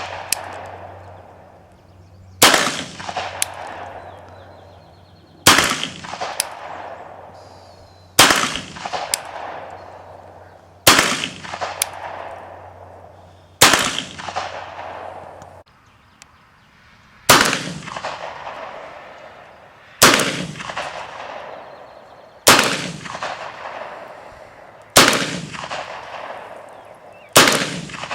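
Italian Model 1889 Bodeo revolver firing 10.35 mm rounds: ten single shots, one every two and a half to three seconds, with a longer pause about halfway through. Each sharp report is followed by an echo that dies away over about a second.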